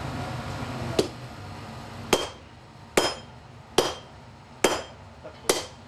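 Sledgehammer blows on red-hot steel lying on an anvil: six strikes a little under a second apart, the first lighter, each with a short metallic ring. A striker is drawing out the point of a forged ice chisel.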